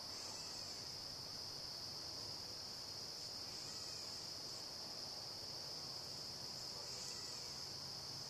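Steady high-pitched insect chorus, crickets trilling continuously, with a few faint short chirps.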